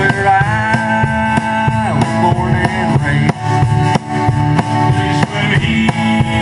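Live band playing with acoustic guitars, upright bass and a drum kit keeping a steady beat.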